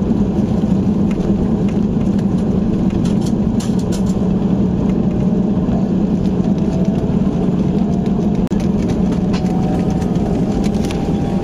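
Boeing 737-800 cabin noise during taxi after landing: a steady low rumble from the CFM56 engines, with scattered clicks and a faint rising whine in the second half.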